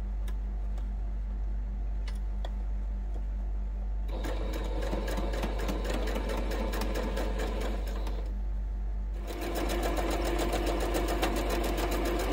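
Electric domestic sewing machine stitching a seam through quilting cotton, a fast, even needle rattle. It starts about four seconds in, stops for about a second, then runs again.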